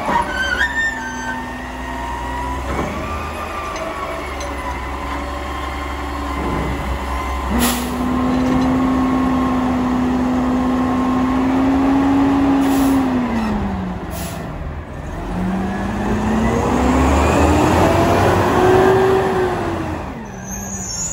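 Mack LR natural-gas garbage truck with a Heil Sierra front-loader body and Curotto Can arm. The engine runs at a raised, steady speed while the hydraulic arm works, with a sharp knock about seven and a half seconds in. Then the engine note dips and climbs again in pitch as the truck pulls away.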